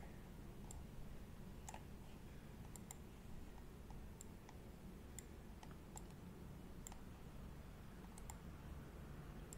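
Computer mouse clicking, about a dozen faint, irregular clicks over a low, steady background hum.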